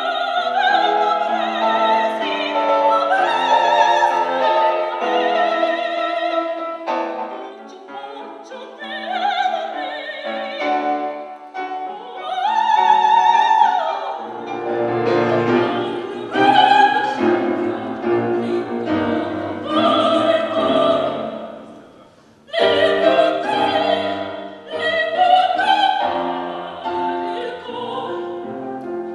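Classical operatic singing by a female voice with vibrato, accompanied by piano; the music drops away briefly about three quarters of the way through and then comes back in at full strength.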